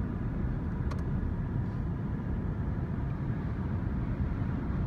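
Car cabin noise while driving slowly: a steady low rumble of engine and tyres, with one short click about a second in.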